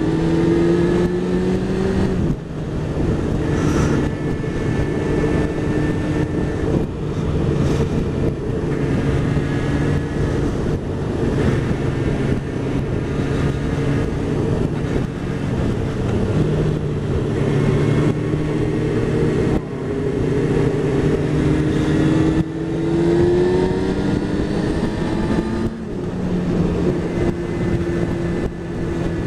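1998 Honda CBR600F inline-four engine running under way, heard from the rider's helmet camera. The engine note climbs as the bike accelerates and drops back at each gear change, several times.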